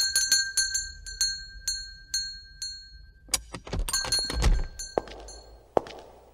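Reception-desk service bell struck over and over in quick succession, each strike ringing at the same pitch. The ringing runs for about three seconds, then comes a second rapid flurry with a few low thuds. Softer clicks follow near the end.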